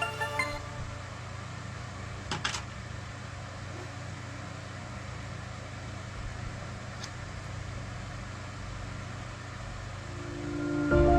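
A steady low mechanical hum, like a small electric motor running, with a quick cluster of sharp clicks about two and a half seconds in and a faint tick near seven seconds.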